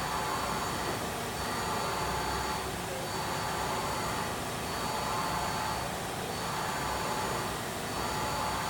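Mazak MTV-515/40N CNC vertical machining center running under power: a steady mechanical whir and hiss, with a thin high whine that comes and goes about every one and a half seconds.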